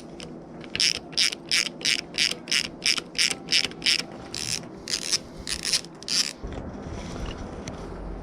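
Ratchet wrench being worked in short back-and-forth strokes on a motorcycle bolt, about fifteen quick clicking strokes at roughly three a second, which stop about six seconds in. A low steady rumble comes in near the end.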